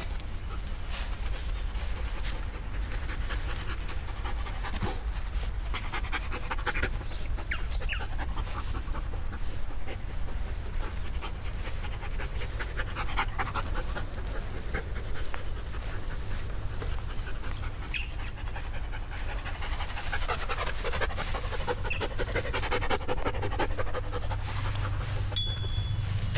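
Poodle panting in quick rhythmic breaths, over a steady low rumble.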